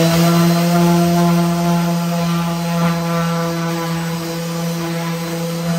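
Electric random orbit sander running at a steady speed, sanding the edge of a white countertop panel, with a steady motor hum.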